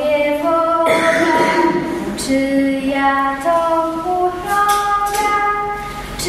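A single woman's voice singing a slow melody, holding each note before moving to the next.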